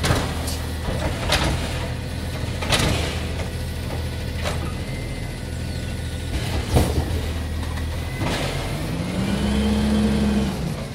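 Automated side-loader garbage truck running on its natural-gas engine with a steady low hum, while about six sharp clanks ring out from its grabber arm and the bins. About eight seconds in, a whine rises in pitch and then holds until near the end.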